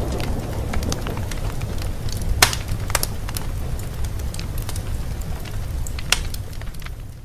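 Fire crackling in a fireplace: a steady low rumble with scattered sharp pops, fading away near the end.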